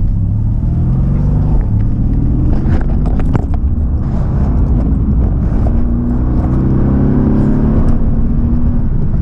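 Mercedes-AMG GT's twin-turbo V8 heard from inside the cabin as the car is driven. The engine note climbs steadily in pitch under acceleration from about halfway through, then drops back near the end.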